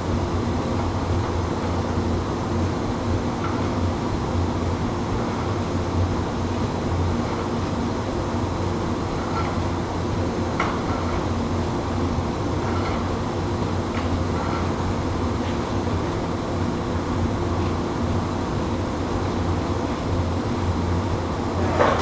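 Steady low drone and hum of a running iron-foundry cupola furnace and the hall's machinery, with a few faint clicks and knocks.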